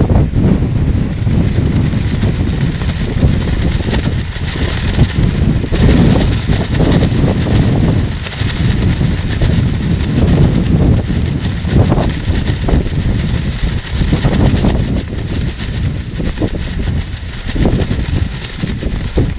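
Strong gusty wind buffeting the microphone with a loud low rumble, and a plastic rainsuit flapping and rustling in the gusts.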